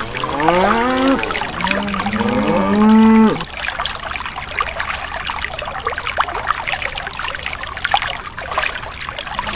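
A cow mooing, two long moos in the first few seconds, the second louder. Then a thin stream of water trickles and splashes steadily from a small spout into a shallow pool.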